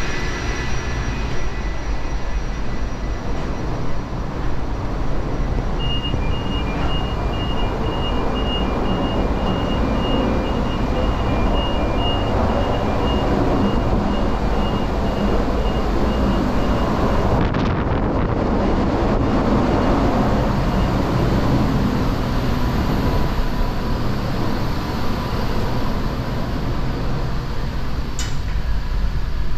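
Loud, steady din of a cruise ship's engine-room machinery, with a faint electronic beeping repeating through the middle of the stretch and a short click near the end.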